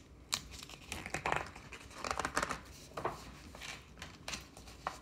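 A picture book being handled and its pages turned: a string of short papery rustles and crinkles.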